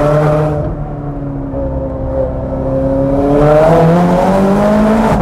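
Straight-piped Ferrari 430 Scuderia V8 heard from inside the cabin under hard driving. Its note eases down for a couple of seconds, then climbs steadily as the car accelerates. Near the end it breaks and drops in pitch on an upshift.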